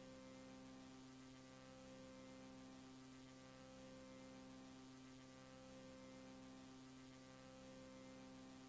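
Near silence with a faint steady electrical hum in the VHS tape playback.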